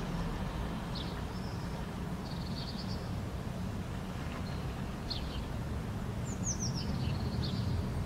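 Small songbirds chirping outdoors, short high calls every second or two with a quick run of falling notes about six seconds in, over a steady low background rumble.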